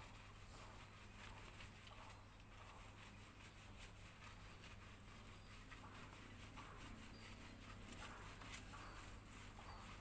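Faint rubbing and patting of hands scrubbing a wet, shampooed dog's fur, under a steady low hum.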